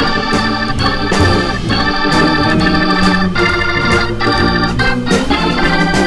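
Hammond organ playing a jazz tune with changing sustained chords and lines, backed by a drum kit whose cymbal and drum strokes keep time.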